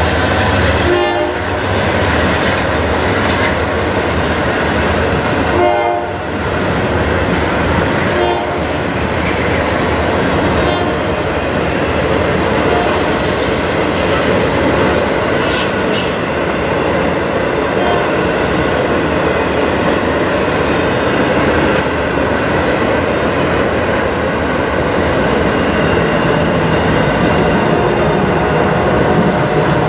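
Intermodal freight train rolling past: a loud, steady rumble and rattle of wheels on rail, with short squeals in the first several seconds.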